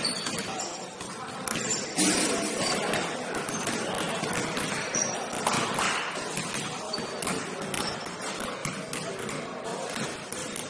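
Basketball game on an indoor court: a ball bouncing amid players' voices, with many short knocks and a busy background noise throughout.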